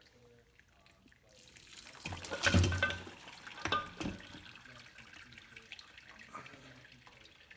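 Hot bone broth pouring out of a slow-cooker crock into a metal mesh strainer over a pot, splashing, starting about a second and a half in. There are two loud knocks as the cooked bones tumble into the strainer, then a lighter, steady trickle.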